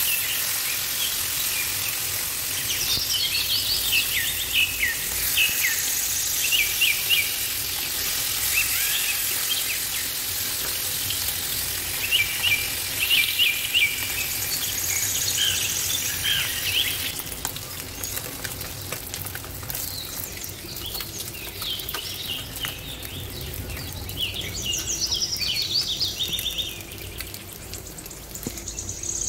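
Small birds chirping in repeated bursts of short calls over a steady sizzle of food frying in oil; the sizzle grows fainter after about seventeen seconds.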